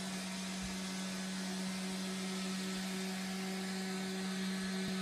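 Robot vacuum cleaner running: a steady motor hum with an even whirring hiss.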